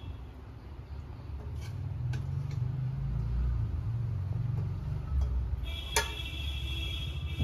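A low rumble that swells in the middle, with a few light clinks of a metal serving spoon against steel dishes; about six seconds in, the spoon strikes a steel curry bowl, which rings briefly.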